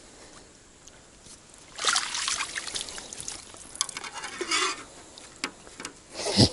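A landing net with a fish in it being lifted out of the water: water splashes and streams off the mesh about two seconds in and again around four seconds. A short, loud knock comes near the end.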